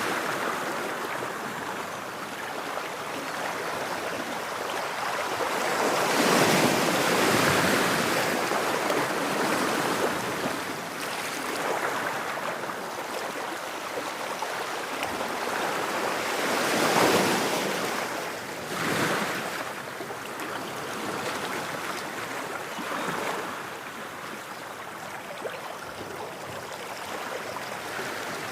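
Ocean surf: waves breaking and washing in, a steady rush that swells and fades, with the biggest waves about six seconds in and again near seventeen seconds.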